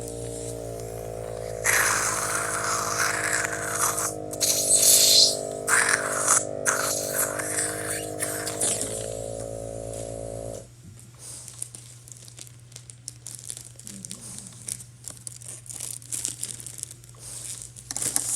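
Plastic toy packaging crinkling and tearing, loudest in the first half, over a steady electronic tone with several pitches that cuts off suddenly about two thirds through; after that, light scattered rattling and clicks.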